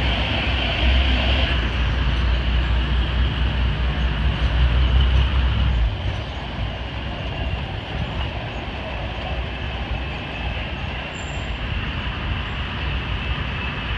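Engine and road noise heard riding in an open early-1950s Chevrolet convertible: a steady rumble and hiss, with a heavy low drone that drops away about six seconds in.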